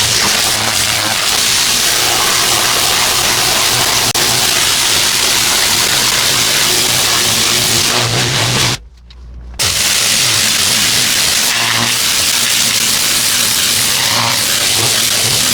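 Pressure washer with a turbo nozzle blasting water onto concrete: a loud, steady hiss of spray over the low hum of the machine's engine. The spray breaks off for under a second about nine seconds in, then starts again.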